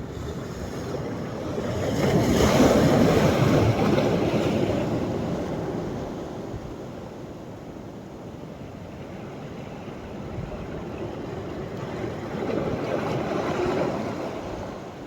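Sea waves breaking and washing onto the shore: a loud surge of surf about two seconds in that slowly fades, and a smaller one building near the end.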